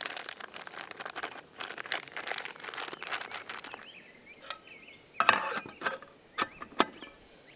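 Plastic bag crinkling and crackling as slightly frozen smoked turkey is broken up into a cooking pot. After about four seconds come a few sharp metal clinks from the spork and the lid going onto the metal pot.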